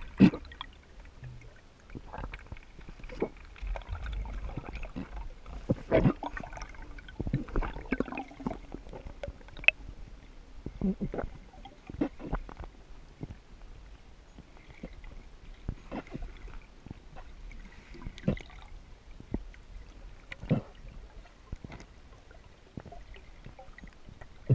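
Underwater noise heard through an action camera's waterproof housing as a freediver swims up: irregular muffled knocks and clicks over a low water rumble, with a loud knock near the end as the surface is reached.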